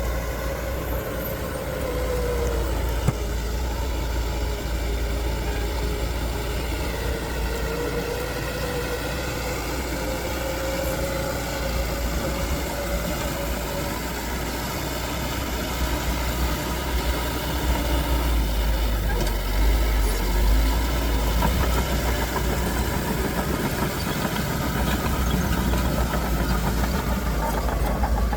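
Heavy earthmoving machinery's diesel engine running over a deep rumble, its pitch slowly rising and falling as the engine speed changes; it gets a little louder in the second half.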